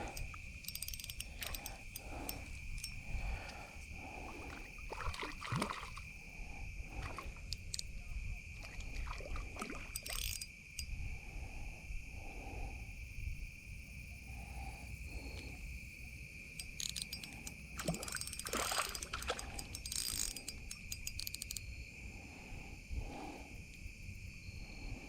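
Steady, even insect chorus on one high pitch, like crickets or katydids, with scattered clicks and irregular scuffing noises over it.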